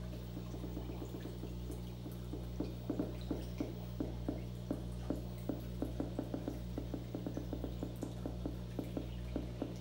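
Electric eel's electric discharges made audible as sharp clicks over a steady electrical hum, uneven at first and then a quick, fairly regular train of several clicks a second from about two and a half seconds in.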